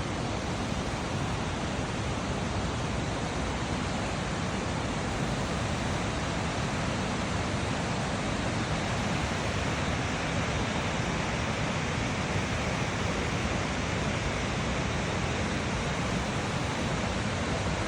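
Steady rush of a large waterfall's falling water, an even noise with no breaks or changes.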